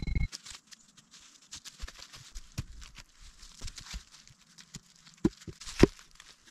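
Boots crunching and rustling through dry fallen leaves while logs are handled. There is a low thud at the start as the back of an axe drives a wooden stake into the ground, and two sharp wooden knocks, the second the loudest, about five and a half seconds in as a log is set down onto a stacked log wall.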